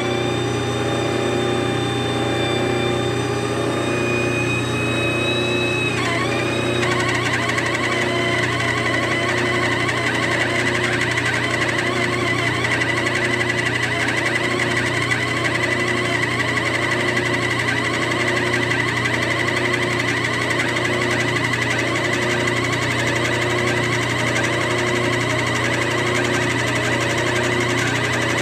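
Metal lathe running with an air-powered pencil grinder spinning in its tool post: a steady machine hum under a high whine. About six seconds in the whine shifts and dips, then holds steady.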